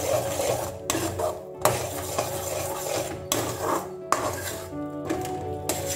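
Metal spatula scraping and knocking against a metal kadai as roasted coconut and sesame are stirred into thick jaggery syrup, with a few sharp knocks, over background music.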